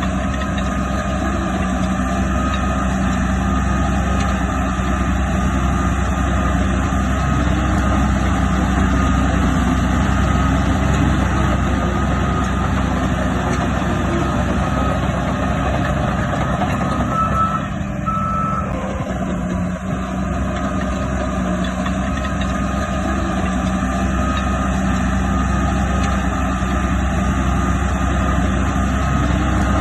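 Heavy diesel earthmoving machinery running steadily under load, with two short reversing-alarm beeps a little past halfway.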